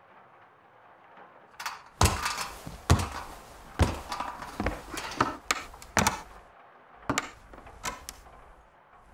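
A series of irregular knocks and thuds with short creaky tails, about a dozen over some six seconds, starting about a second and a half in; the loudest come about two and three seconds in.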